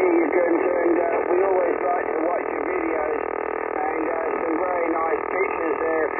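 Shortwave receiver audio in lower sideband on the 40-metre band: steady radar noise interfering over the band noise, with a faint, garbled voice underneath.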